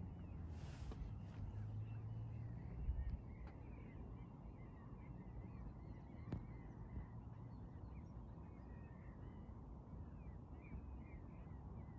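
Birds chirping and calling in many short, quick notes over a low, steady rumble.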